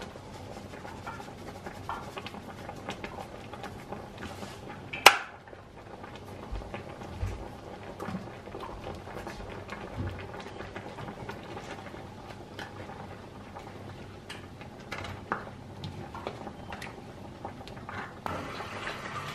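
Kitchen handling sounds: scattered small clinks and knocks of dishes and utensils, with one sharp loud clack about five seconds in. Near the end a steady rushing noise sets in.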